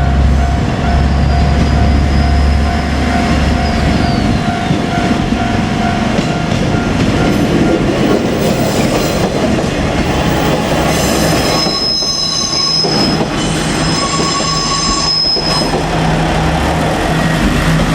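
KiHa 47 diesel railcar running past on the line, its engine and wheels on the rails loud and continuous. High squealing tones from the wheels come and go in the second half.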